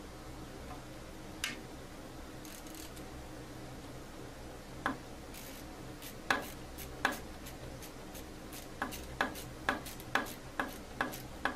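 Ratchet turning an Allen wrench to tighten the clamp screw on a Seyco ST-21 scroll saw's upper arm: sharp metallic clicks, a few scattered at first, then about two a second near the end.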